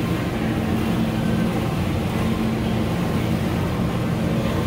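Steady low mechanical hum with a constant drone, unchanging throughout.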